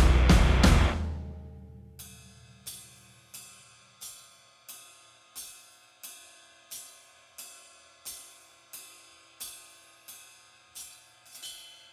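Background music: a loud beat fades out over the first second or two, then soft ringing hits follow, evenly spaced at about three every two seconds.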